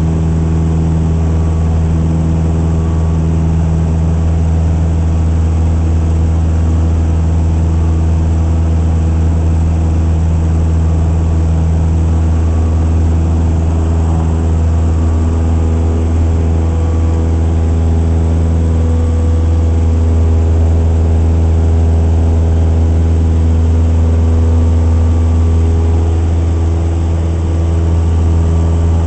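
Cessna 172S Skyhawk's four-cylinder Lycoming engine and propeller running steadily at climb power, heard inside the cabin.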